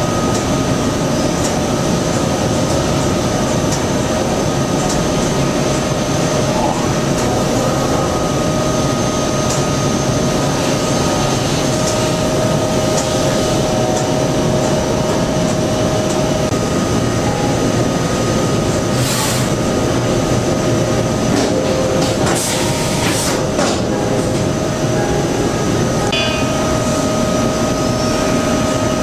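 Steady machine-shop machinery noise: a continuous drone with a steady whine running through it, and a few short hisses in the second half.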